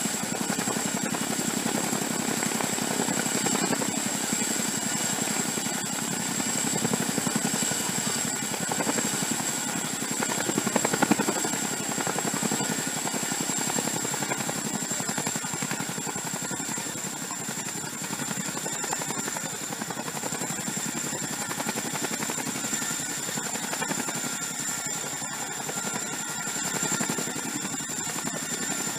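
RAF Chinook tandem-rotor helicopter hovering with underslung loads, its rotors giving a steady, rapid beat over a dense rush of noise, with a thin high whine above.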